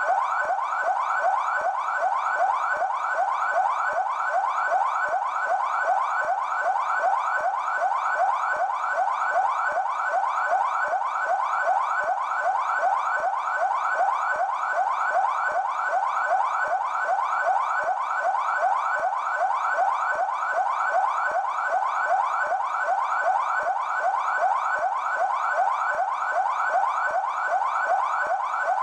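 São Paulo Military Police car siren on its yelp setting: a fast, evenly repeated wailing sweep that runs without a break.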